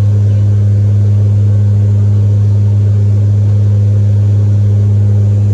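Airliner engine drone: a loud, steady, deep hum with a fainter overtone, holding one pitch throughout.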